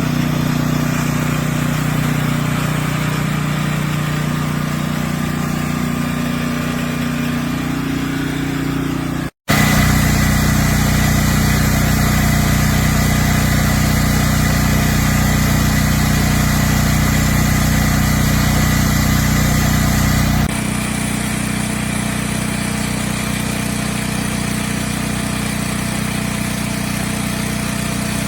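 Westinghouse 14,500-watt tri-fuel portable generator's engine running steadily. The sound breaks off for an instant about a third of the way through, and the deep part of the engine sound drops near three quarters of the way through.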